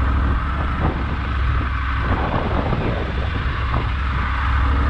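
Triumph Tiger 900 GT Low's inline three-cylinder engine running steadily at low speed, a constant low drone, with wind noise on the microphone.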